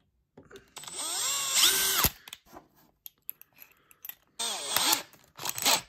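Cordless Makita drill running in two short bursts, each speeding up and winding down, with a few light clicks in between. The first burst is the 2 mm bit drilling a pilot hole through epoxy-filled plywood.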